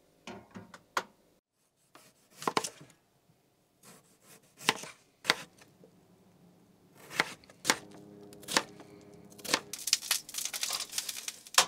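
Kitchen knife cutting Yukon gold potatoes on a plastic cutting board: sharp single knocks of the blade hitting the board, roughly one a second, with a quicker run of clicks near the end.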